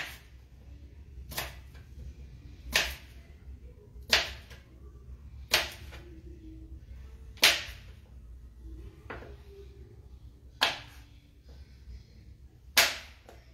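Kitchen knife cutting slices off a potato and knocking down onto a plastic cutting board: eight sharp chops, about one every one and a half seconds, the sixth softer than the rest.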